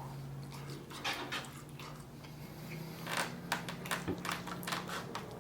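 Close-miked eating sounds: wet chewing and lip smacking on a wet burrito. Short strokes come a few at a time about a second in, then more densely from about three seconds in, over a faint steady low hum.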